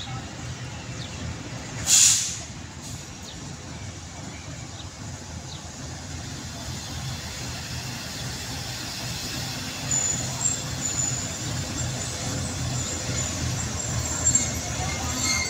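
GE GEU-40 diesel-electric locomotive hauling a passenger train, its engine running with a steady low rumble that slowly grows louder as it approaches. A short, loud hiss comes about two seconds in, and thin high-pitched metallic squeals from the train join in over the second half.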